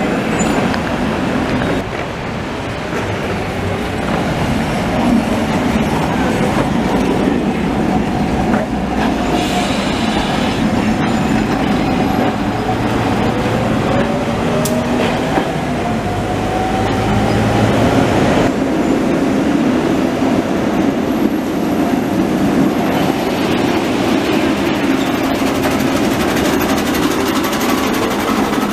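Rome ATAC trams passing close by: steel wheels rumbling over the rails along with the running gear, and a whine that rises in pitch twice as a tram gets under way.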